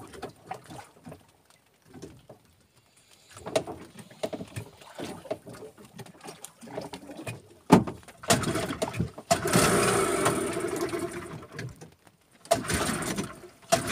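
Small outboard boat motor being started cold for its warm-up: some handling noises, then the engine turns over and runs in a loud burst of about three seconds that cuts out, then starts running again near the end.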